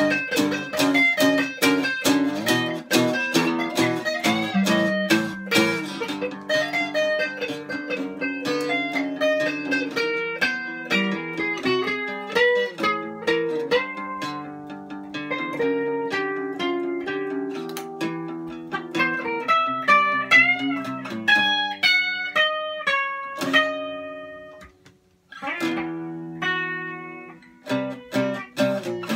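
Two guitars, one a Telecaster-style electric, playing an instrumental break together: quick picked notes and chords, with a lead line running up high near the end, a brief pause, then chords again.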